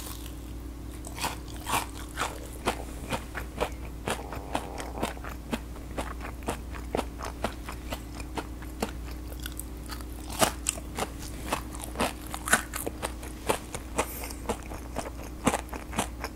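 Close-up crunching and chewing of a squeezed, batter-coated deep-fried gulab jamun: a steady run of crisp crackles and crunches from the fried batter crust, over a faint low hum.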